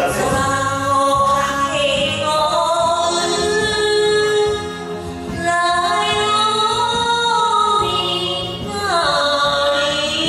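A woman singing a Japanese song into a karaoke microphone over a karaoke backing track. She holds long notes with sliding pitch and pauses briefly about halfway.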